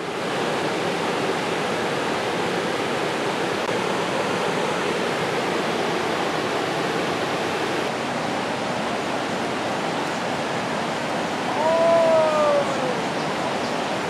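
Steady rushing of a swollen, muddy river running fast past the bank, with rapids upstream. About twelve seconds in, a short falling call briefly rises above the water noise.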